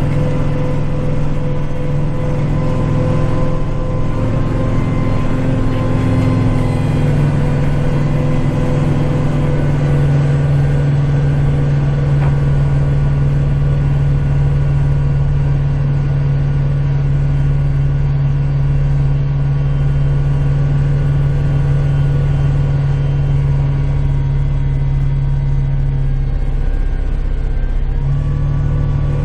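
Kubota tractor's diesel engine running steadily, its note stepping up or down slightly a few times.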